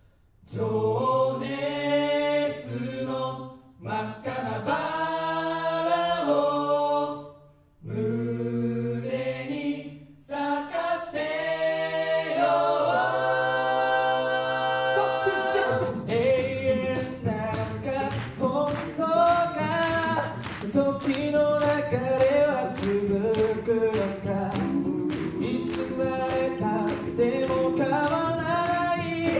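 A cappella group singing in close harmony with microphones: held chords broken by short pauses, then about halfway through a steady vocal-percussion beat joins and the voices move in rhythm over it.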